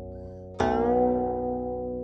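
Background music on a plucked Chinese zither: a new note is plucked about half a second in and rings out slowly, its pitch bending a little as it fades.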